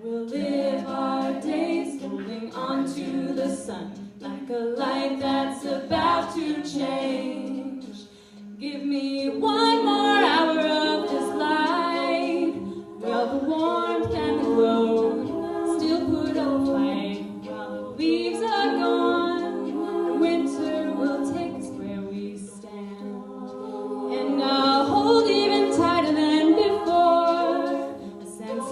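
A cappella vocal group singing in multi-part harmony with no instruments, a low sustained note held under the shifting upper voices.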